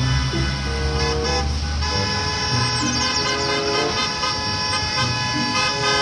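School bus horns honking, several held tones sounding together for seconds, over background music.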